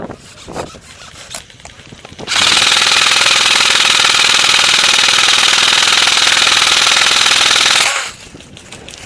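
Airsoft electric gun firing one long full-auto burst, a rapid, continuous rattle that starts suddenly about two seconds in and cuts off sharply about five and a half seconds later.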